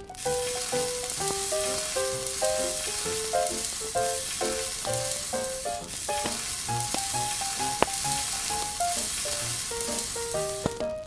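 Steady sizzling of food grilling, with a brief break about six seconds in, under a light melody of short notes.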